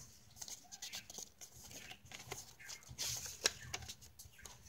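Paper pages and card inserts of a handmade junk journal being handled and turned: soft rustling and light taps, with a louder rustle about three seconds in.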